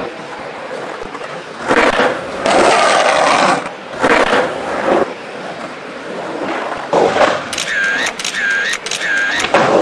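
Skateboard wheels rolling and scraping over the concrete of an empty swimming pool in several loud passes. Near the end come three short squeaking tones in quick succession.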